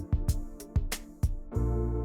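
Background music with a steady beat: sustained keyboard chords over light percussion, the deep bass dropping out for about the first second and a half and then coming back in.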